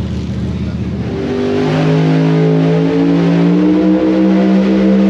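A race car engine drones, then from about a second in grows louder, its pitch climbing slowly and steadily under load for about four seconds.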